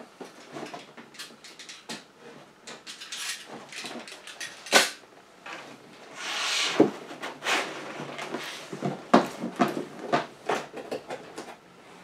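Cardboard box being opened by hand: a run of scrapes, rubs and sharp knocks of cardboard, with a longer sliding scrape about six and a half seconds in as the lid is worked off.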